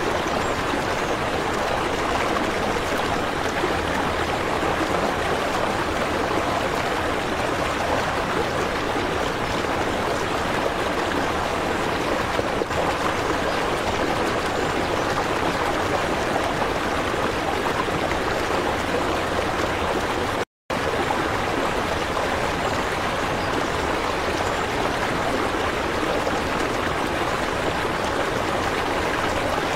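Steady rushing of running water, even throughout, with a brief cut to silence about twenty seconds in.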